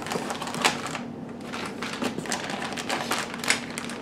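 Clear plastic bags of small parts rustling and crinkling as they are handled and lifted out of a cardboard box, with a few sharp clicks and light knocks.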